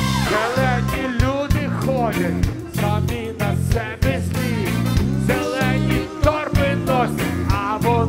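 Live rock band playing on stage: drums and bass keep a steady beat under guitars, with a wavering melody line on top.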